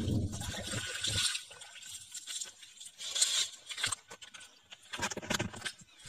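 Water splashing and sloshing in a shallow rainwater pool for about the first second, then quieter scuffs and sharp steps on wet, stony ground near the end.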